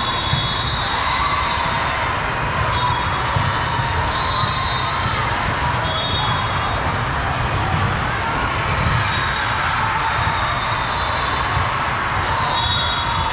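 Busy, echoing din of a large hall of volleyball courts: balls being struck and bouncing over a steady haze of distant voices, with brief high-pitched tones coming and going.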